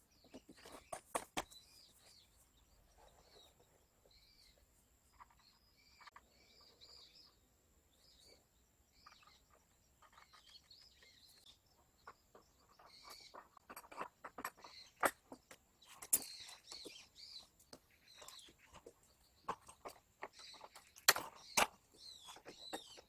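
Small birds chirping in short, repeated calls, with scattered sharp clicks and knocks, a few louder ones near the middle and near the end.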